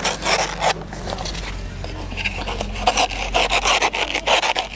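A blade sawing into the fleshy stem of a banana plant near its base to cut the plant down: repeated rasping strokes, a few a second, easing off about a second in and picking up again later.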